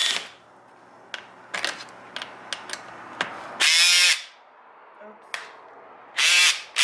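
A Snap-on power tool spinning fasteners off the steering wheel's horn assembly in short bursts: once about three and a half seconds in, its pitch falling as it winds down, and again near the end. Small clicks of handling the tool come in between.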